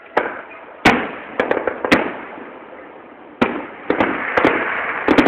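Aerial firework shells bursting in the grand finale: a string of sharp bangs about half a second to a second apart, coming faster in the second half over a rising crackle.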